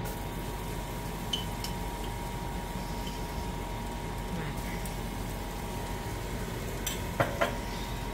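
Melted butter sizzling steadily in a pan as minced garlic is spooned in, with a few light clinks of a metal spoon against a glass jar.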